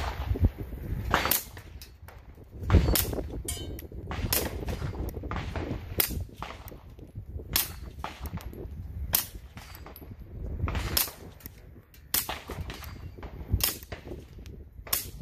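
Suppressed rifle firing single shots at an unhurried pace, about a dozen sharp cracks spaced roughly one to one and a half seconds apart, each with a short echo.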